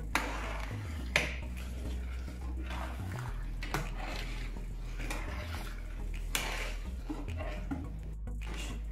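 Metal slotted spatula scraping and clinking against a stainless-steel pan while stirring thick cream sauce, with a sharp clink about a second in and a few lighter ones later. A steady low hum runs underneath.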